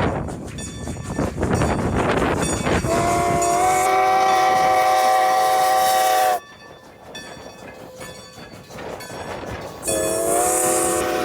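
Train whistle sounding a chord, two blasts: a long one of about three and a half seconds that cuts off suddenly, then a second starting near the end. The pitch rises briefly as each blast opens. Before the first blast, the train's running noise and rail clatter.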